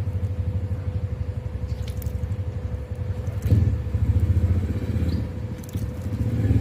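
Daihatsu Terios engine idling with a steady low throb and a thin steady hum over it; a few faint clicks come through, and it grows a little louder about halfway through.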